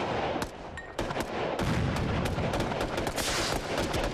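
Battle gunfire: rapid, overlapping machine-gun and small-arms shots, with a short lull about half a second in before the firing picks up again at about one second.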